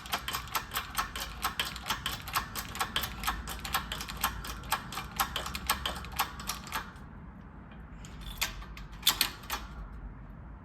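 Rapid, even ratcheting clicks, about six or seven a second, as a press is worked to seat a carrier bearing on a differential carrier. The clicking stops about seven seconds in, then a few single metal clicks follow.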